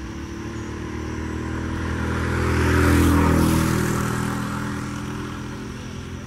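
A motor vehicle driving past close by: its engine sound grows, is loudest about three seconds in, then fades away.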